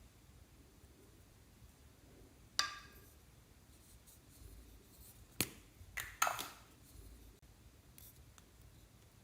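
Four sharp clicks and taps of small hard objects being handled. The first, about two and a half seconds in, rings briefly like a ping; a single click comes about five seconds in, and two more follow close together a little later.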